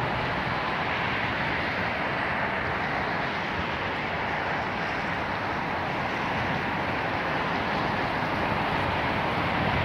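Steady outdoor ambient noise: an even, unchanging hiss with no separate events standing out.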